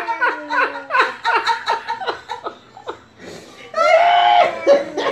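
A person laughing in a run of quick bursts that fall in pitch, then laughing again more loudly near the end.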